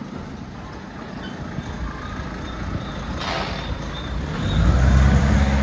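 A heavy motor vehicle's engine getting louder as it comes close and passes, loudest near the end, with a short hiss about three seconds in.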